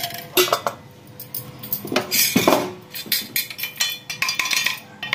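Steel spoon clinking and scraping against a steel pot while stirring tea powder into milk: a run of irregular strikes, a few of them ringing briefly.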